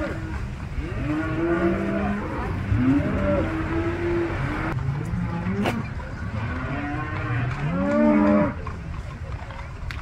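A herd of cattle mooing, many calls overlapping from several animals, the loudest about eight seconds in.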